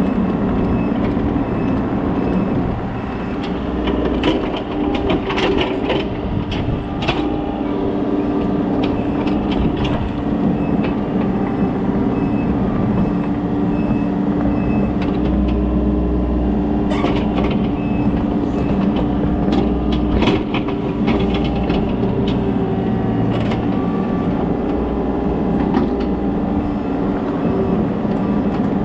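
Kobelco SK35SR mini excavator's diesel engine running steadily under working load, with scattered sharp clanks and cracks from the machine at work.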